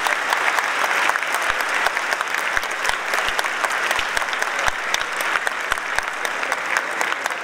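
A large audience applauding: a dense, steady clatter of many hands clapping.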